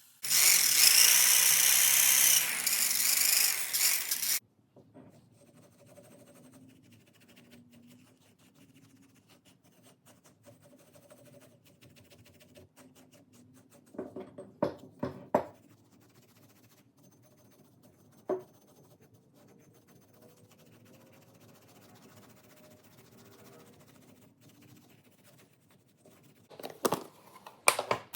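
A power tool running loudly for about four seconds, then cutting off suddenly. Quiet follows, with a few scattered clicks and knocks from handling.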